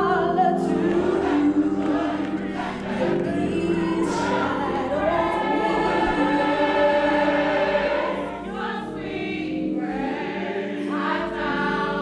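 A choir singing long, held notes in harmony, with a brief softer stretch about two thirds of the way through.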